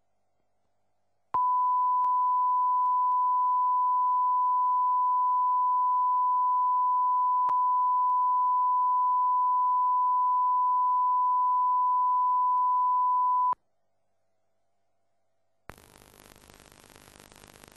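Test tone accompanying the SVT2 test card: a single steady, high-pitched beep held for about twelve seconds, starting a second or so in and cutting off abruptly. A faint hiss comes in near the end.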